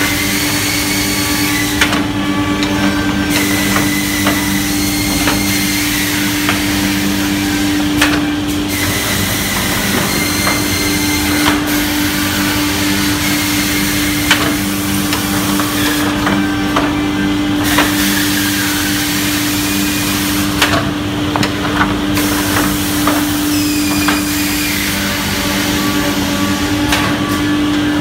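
JESH six-line woodworking boring machine running on auto feed: a steady motor hum under a dense drilling hiss as the bits bore into a wood panel. Sharp knocks come now and then, and the hiss drops away briefly a few times.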